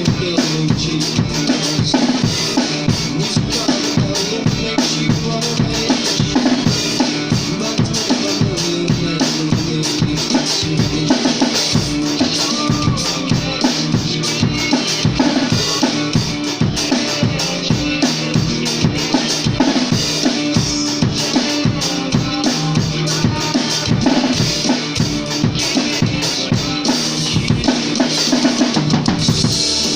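Rock music with a drum kit keeping a steady beat on bass drum and snare, over a full band.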